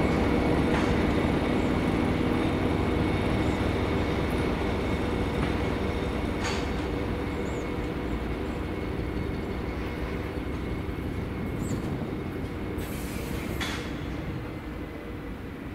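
SM42 diesel-electric shunting locomotive running steadily as it pulls a string of hopper wagons away, its engine note fading as it recedes. A few short clicks come through, and a brief hiss near the end.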